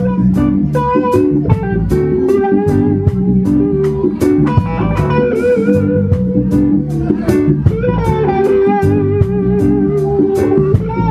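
Live band music: a drum kit keeps a steady beat under electric guitar and bass, with a held, wavering melody line over the top.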